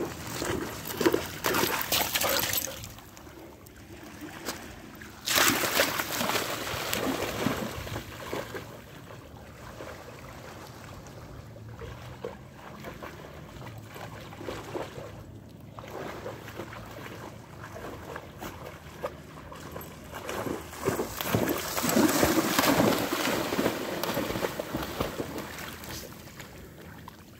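Water splashing and sloshing as a dog wades and swims in shallow seawater. The splashing comes in three louder stretches (at first, again about five seconds in, and from about twenty seconds in), with quieter water noise between.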